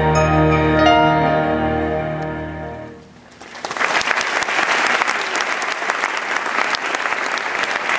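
The dance music ends on a long held chord that fades out over the first few seconds; then, about three and a half seconds in, the audience breaks into applause and keeps clapping.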